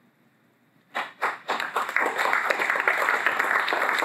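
Audience applauding. A few scattered claps come about a second in and quickly swell into steady applause from many hands.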